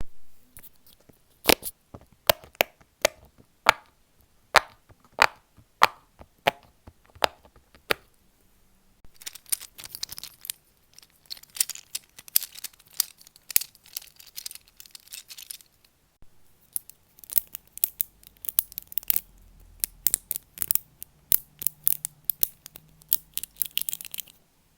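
Fidget toy clicking: sharp single clicks about twice a second at first, then from about nine seconds in, rapid runs of crisp clicks and snaps with a short pause partway through.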